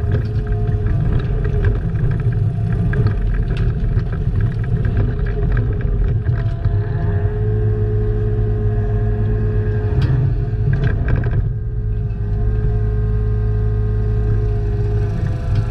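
Excavator's diesel engine running steadily under load, with several sharp metallic clanks, a cluster of them about ten to eleven seconds in.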